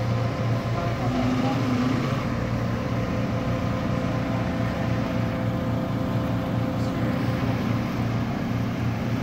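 Diesel engine of a JCB telehandler running steadily while it holds a load on its forks.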